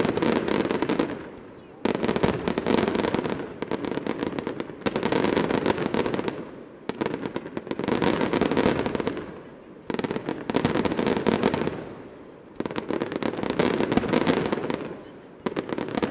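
Aerial fireworks display: volleys of shells bursting in dense clusters of sharp bangs and crackles. The volleys come in surges about every two and a half to three seconds, each starting abruptly and tailing off.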